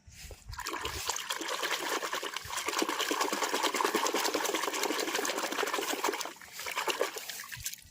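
Water trickling and splashing, with a dense fizzing crackle, building up about half a second in and dying away near the end.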